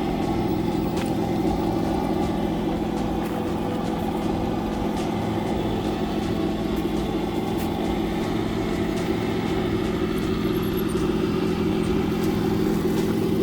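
Electric motor and geared drivetrain of an RC crawler running at a steady speed, giving an even mechanical hum with a constant pitch.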